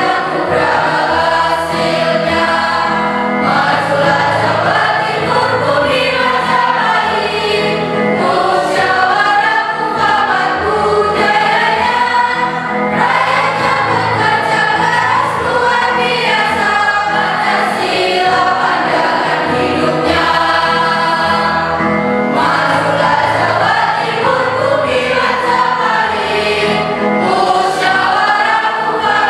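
A mixed choir of boys and girls singing together in parts, with sustained, continuous phrases.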